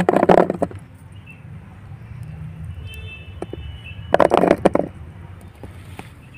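Two handfuls of jamun (Indian blackberries) dropped into a plastic bowl, each a quick clatter of many small knocks lasting under a second, about four seconds apart, over a steady low rumble.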